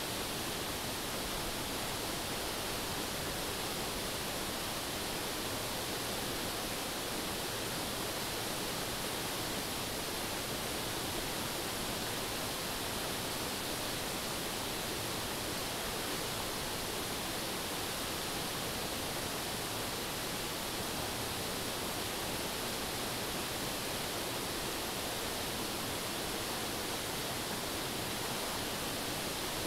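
Steady, unbroken rush of a shallow river flowing over rocks.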